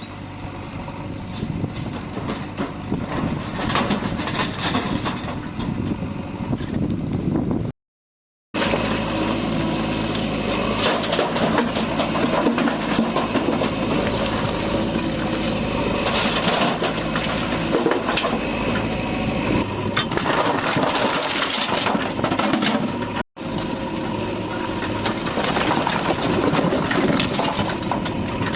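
Diesel engine of a JCB 3DX backhoe loader running at work, with scattered knocks over it. The sound cuts out to silence for a moment about 8 seconds in and again about 23 seconds in.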